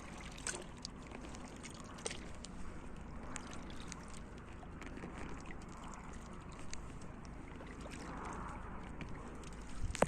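Kayak paddle dipping and pulling through lake water about every two and a half seconds, water swishing and dripping off the blade, with a few light knocks and clicks.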